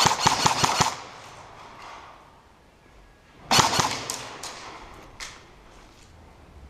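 Airsoft guns firing: a rapid burst of about eight shots at the start, then another loud burst about three and a half seconds in, followed by a few scattered single shots.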